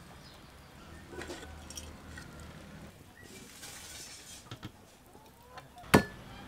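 Mostly quiet with faint handling sounds and a soft hiss midway, then near the end one sharp knock of a steel cleaver chopping down onto a thick wooden chopping board.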